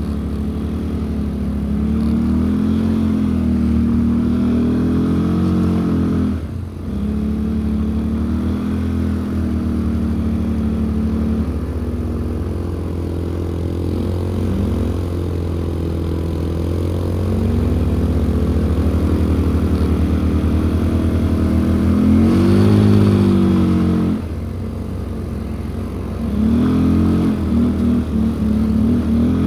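ATV engine running under way, its pitch rising and falling with the throttle. It dips briefly about six seconds in, and revs higher a little after twenty seconds before easing off.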